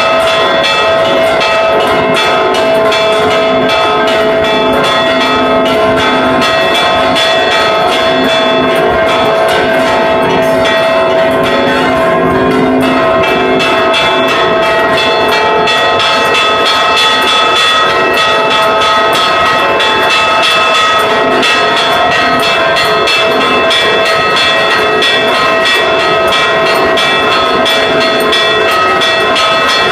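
Large church bells struck rapidly and without pause by ropes pulled on their clappers, a repique, with many bell tones ringing on over one another. It is loud and close, heard from inside the belfry.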